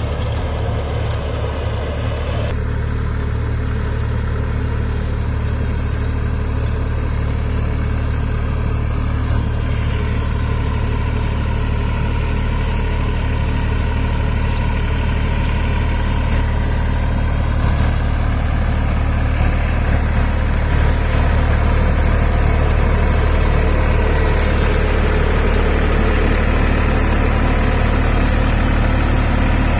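Massey Ferguson 254 Dynasmart tractor's diesel engine running steadily while pulling a plough through hard soil, a little louder in the last third.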